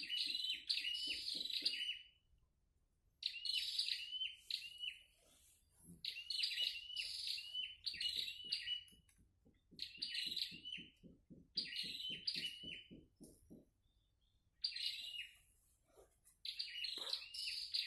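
A songbird repeats short bursts of quick, high chirping notes, about seven phrases a second or two apart. Through the middle stretch a second, lower call runs underneath as an even series of pulses, about four or five a second.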